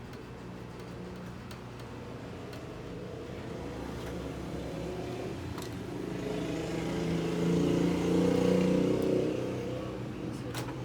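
A motor vehicle's engine passing by, growing louder over several seconds, then fading, over a steady low hum. A couple of sharp clicks come near the end.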